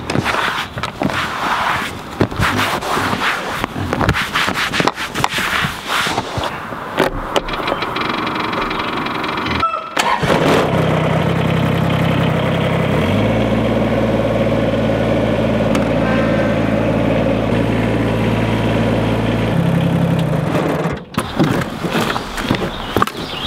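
Rustling and knocking of handling for about ten seconds, then a compact tractor's engine starts and runs steadily. It picks up speed about three seconds later and cuts off abruptly a couple of seconds before the end, with more handling noise after.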